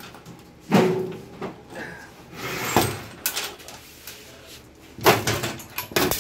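Factory-glued LED backlight strips being yanked off a TV's metal back panel with hard tugs, in several sudden bursts of noise with quieter handling sounds between.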